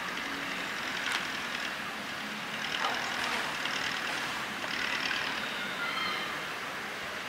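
Steady hiss from a standing W-class steam locomotive during coaling of its tender, mixed with the machinery of a truck-mounted crane lifting a bulk bag of coal. A few faint higher whines come and go, one dipping and rising about three seconds in.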